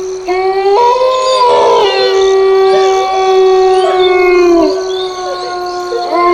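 Several long canine howls overlapping, each held and sliding a little in pitch, with new howls joining shortly after the start and again near the end, over a steady held tone.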